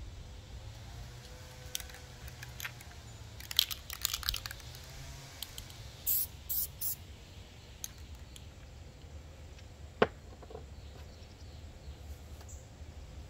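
Aerosol spray-paint can sprayed in three short hisses about six seconds in, a little before them a cluster of clicks and rattles, and one sharp click near ten seconds in.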